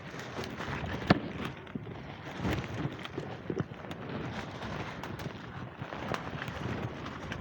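Footsteps of a player moving quickly over the ground, with irregular knocks and rattles of gear and one sharp click about a second in.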